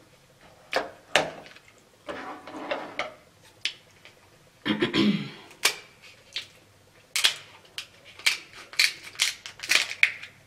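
Kitchen scissors cutting through a king crab leg shell: sharp snips and cracks, a few spread out at first, then coming quickly one after another over the last few seconds.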